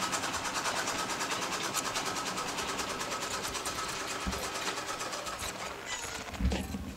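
A sewing machine running steadily with a fast, even clatter that fades out about five and a half seconds in. A few low thumps of handling come near the end.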